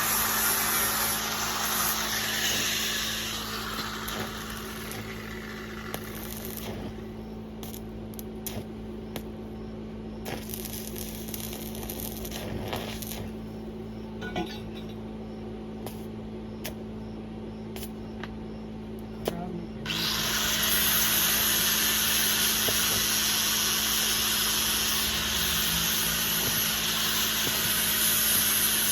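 Electric arc welding: a steady hiss that fades out about six seconds in, with scattered clicks in the pause, and starts again abruptly about twenty seconds in, over a constant low hum.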